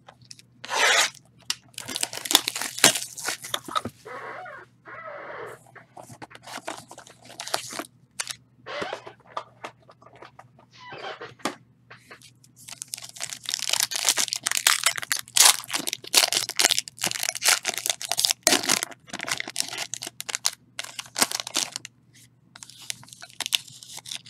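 A box of trading cards is opened by hand and a foil-wrapped card pack crinkles and is torn open. The crinkling and tearing comes in irregular bursts and is busiest in the second half.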